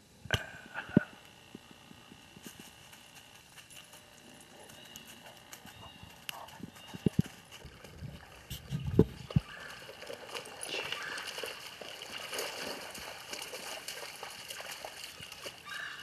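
Footsteps crunching through dry leaf litter. There are a few sharp knocks near the start and around the middle, and a denser crackling rustle through the second half.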